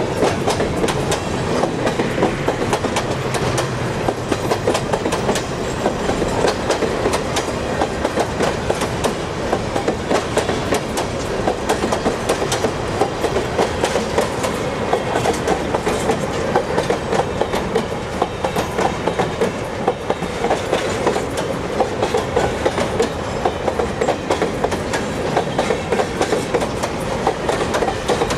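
Freight train wagons rolling past, container flats and then covered hopper cars, with a steady dense clatter of wheel clicks on the rails.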